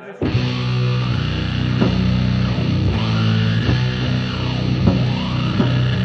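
Heavy rock theme music: electric guitar chords over drum hits, kicking in suddenly just after the start.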